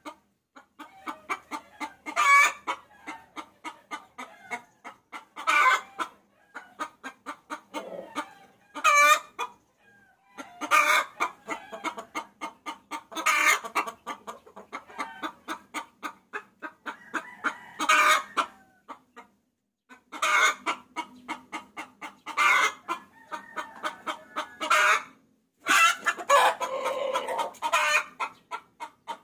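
A hen cackling. Fast runs of short clucks build to a loud, higher call every few seconds, with a few short pauses. This is the hen's call to roosters, used as a lure.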